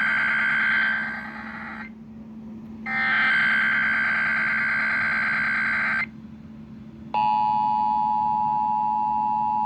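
Emergency Alert System required weekly test broadcast: the digital SAME header data sounds twice, one burst ending about two seconds in and another from about three to six seconds in. About seven seconds in, the steady two-tone EAS attention signal begins.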